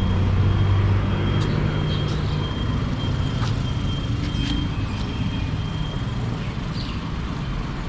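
Road traffic: motor vehicle engines running close by, with a low hum that steps up in pitch about a second in.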